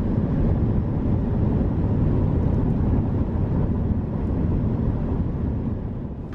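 Steady low road noise of a car cruising at highway speed, heard from inside the cabin: tyres and engine blended into an even rumble that eases off slightly near the end.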